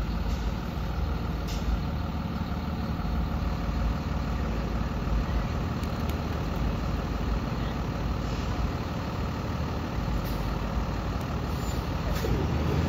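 Steady engine and road noise of a 2023 IC CE-series diesel school bus under way, heard from inside the cabin, swelling slightly near the end.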